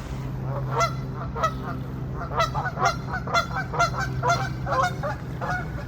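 Goose honking over and over, a quick run of short calls about two a second.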